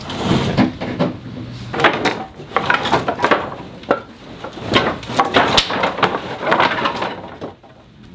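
Scrap wooden boards clattering and knocking against each other as they are shifted and pulled from a pile: a run of irregular knocks and scrapes.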